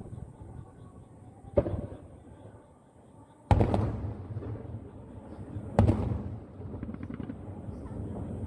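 Aerial firework shells bursting: a boom about a second and a half in, the loudest about three and a half seconds in, and another near six seconds, each with a rolling echo, followed by a scatter of small crackles.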